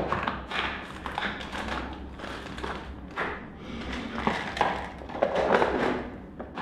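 Small items being handled and packed away by hand: irregular rustling with light taps and knocks.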